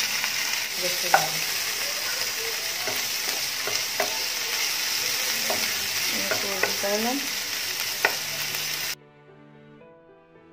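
Onion, tomato, ginger and garlic sizzling in hot oil in a nonstick wok, stirred with a wooden spatula that knocks against the pan a few times. About nine seconds in the frying cuts off suddenly and quieter background music takes over.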